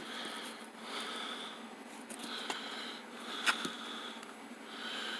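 A man breathing close to the microphone, five short breaths about a second apart, with two sharp clicks from handling in the middle.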